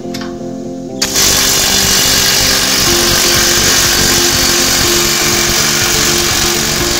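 Mailtank cordless impact wrench, rated 360 Nm, hammering loud and non-stop on a nut tightened to 20 kg·m as it works to break it loose, starting about a second in. Background music plays underneath.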